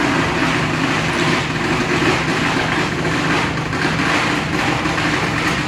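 A long string of firecrackers going off in a continuous dense crackle, over the steady hum of an idling engine.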